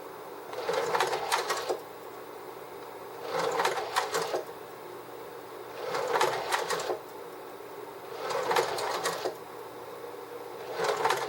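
Sears Whisper Matic III slide projector's slide-changing mechanism cycling in reverse: five mechanical clattering cycles about two and a half seconds apart as the tray steps back one slide at a time, over the projector's steady hum.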